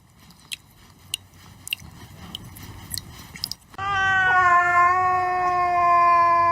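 A few faint clicks about every half second, then a cat's long, loud meow that starts about four seconds in and holds one steady pitch for over three seconds.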